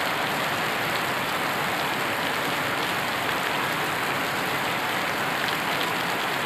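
Heavy rain falling on a water-covered road: a steady, even hiss.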